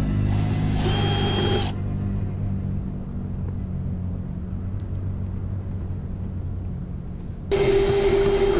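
Power drill with a 3/8-inch bit run in two short bursts of about a second each, one near the start and one near the end, whining as it bores out a rivnut hole in the car's rear trunk panel. A low steady rumble lies underneath and fades out near the end.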